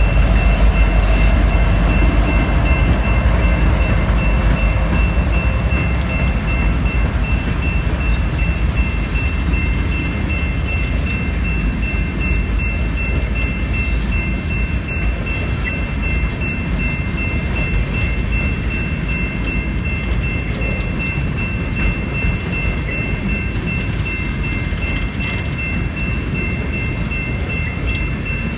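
A BNSF freight train rolling through a level crossing: a steady low rumble and rattle of locomotive and open-top freight cars, easing slightly once the locomotive has passed. Over it, the crossing's General Signals Type-2 electronic bell rings continuously.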